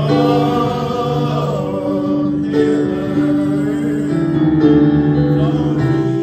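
A group of men singing together in harmony, holding long notes.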